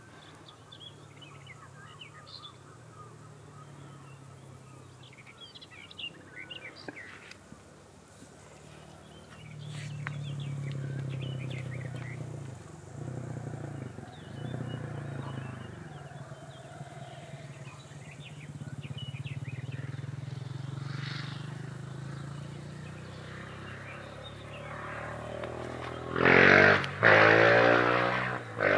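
A low steady drone, swelling a little at times, with birds chirping in the first several seconds. About two seconds before the end, a much louder rushing noise comes in.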